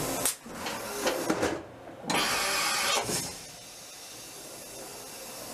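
Automatic tool changer of a Daewoo DHC 400 horizontal machining centre swapping a tool in the spindle: sharp mechanical clunks and clicks, a loud hiss of compressed air for about a second, another clunk, then a quieter machine hum.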